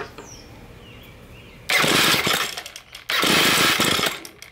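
A Ryobi ES30 string trimmer's two-stroke engine is cranked twice by its touch-start electric starter, each try lasting a little over a second, and it does not catch. The idle mixture screw has been backed out too far, leaving the mixture too rich to start.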